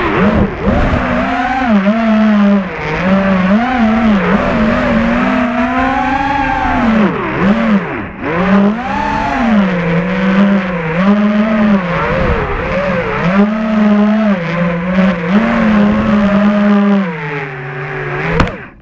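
FPV racing quadcopter's brushless motors and Dal propellers whining, recorded from the onboard GoPro, the pitch rising and falling constantly with the throttle. Near the end the whine sinks lower and then cuts off.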